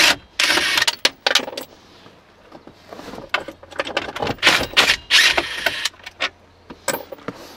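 Cordless impact wrench with a 9/32-inch socket hammering in several short bursts as it backs out the bolts holding a plastic centre console, with small metallic rattles between the bursts.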